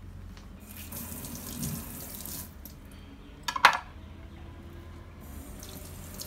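Water running from a kitchen tap into a ceramic bowl of rice cakes, in two spells, with one sharp clack a little over three and a half seconds in.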